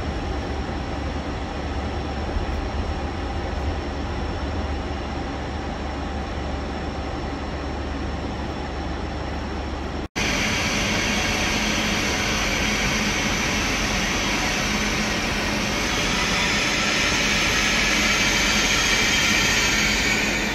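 Railway station platform ambience with a steady low hum; after an abrupt cut about halfway through, a louder steady hiss and whir from a Deutsche Bahn ICE high-speed train at the platform, swelling slightly near the end.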